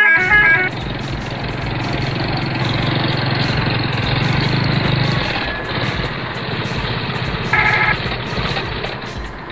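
Truck engine running steadily with a low drone. A multi-note horn sounds at the very start, and a short horn blast comes about three-quarters of the way through.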